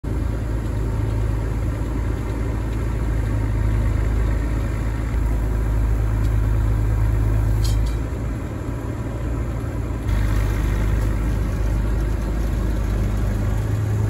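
1981 Massey Ferguson 860 combine's diesel engine running with a steady low rumble as the machine moves over grass. The rumble dips for about two seconds around eight seconds in.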